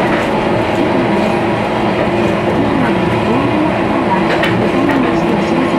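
Toyohashi Railroad 3500-series tram running along its street track, heard from inside the car: a steady running hum with a tone that wavers up and down, and a sharp click from the wheels about four and a half seconds in.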